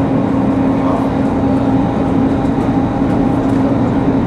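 Inside the cabin of a Mercedes-Benz OC500LE city bus on the move: a steady hum from the diesel engine and drivetrain over even road noise.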